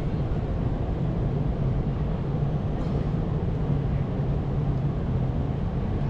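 Steady low rumble of city background noise: a constant low hum under an even wash of noise, with no distinct events standing out.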